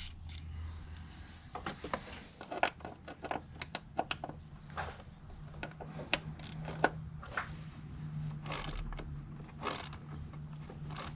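Hand tools and metal parts clicking and clinking as a coil-pack bolt is fitted back in under the hood: irregular sharp taps and clicks over a low steady hum.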